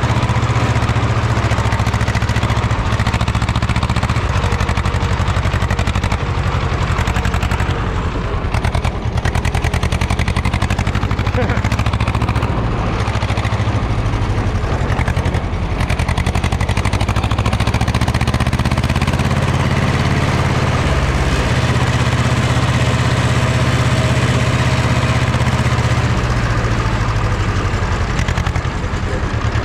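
Farm tractor engine running steadily under way, heard close from the driver's seat.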